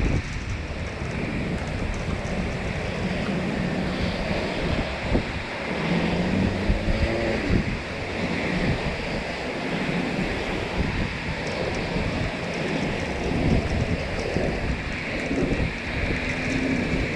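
Wind gusting against the microphone with a steady rushing noise and uneven low buffeting; a faint pitched sound rises briefly about six seconds in.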